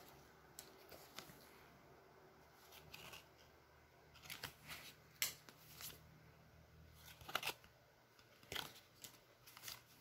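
Football trading cards being flipped and slid against one another in the hands: faint scattered rustles and small snaps of card stock, the sharpest about halfway through and again a couple of seconds later.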